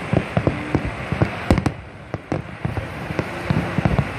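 Fireworks display: a rapid, irregular run of sharp bangs and crackles, several a second and of varying loudness, over a steady hiss.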